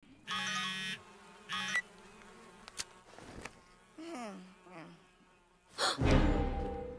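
A phone vibrating in two short buzzes, the first longer than the second. Then come two short falling vocal sounds, and about six seconds in a loud hit that dies away over a second.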